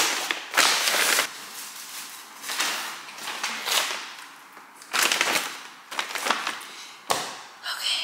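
Paper grocery bag rustling and crackling in short, irregular bursts as groceries are pulled out of it.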